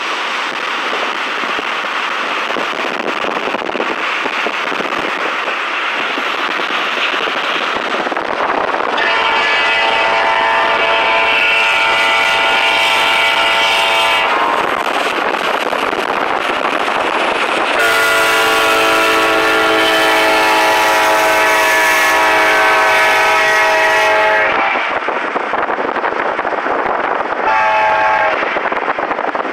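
Arkansas & Missouri Railroad freight train running with a steady rumble. Its locomotive horn sounds two long blasts and then a short one, the opening of the grade-crossing signal.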